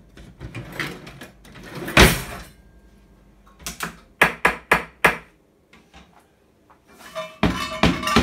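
A kitchen cutlery drawer slid and knocked shut, with a heavy thud about two seconds in. Then a quick run of about five sharp knocks, and near the end a frying pan struck with a metal spatula, clanging with a lingering ring.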